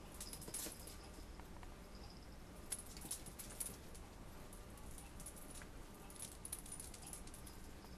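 Faint, short bursts of a pet's collar jingling as dogs and a kitten wrestle on carpet, in clusters about half a second in, around three seconds in, and again around six seconds in.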